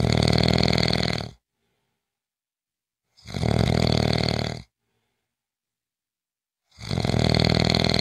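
A person snoring in an even rhythm: a snore about every three and a half seconds, each lasting about a second and a half, with silence between.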